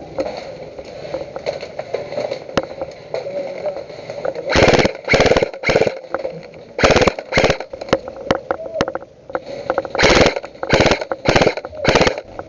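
Airsoft guns firing short rapid bursts, about nine of them from around four and a half seconds in, with scattered single clicks between and a steady hum underneath.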